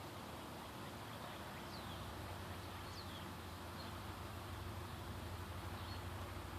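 Faint outdoor ambience: a steady low hum, with a few short, high bird chirps sliding downward about two and three seconds in, and a couple of fainter notes later.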